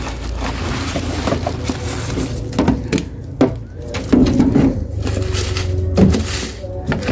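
A long pole knocking and scraping against wooden boards and dry leaves as duck eggs are raked out of a nest: a string of irregular clacks and rustles.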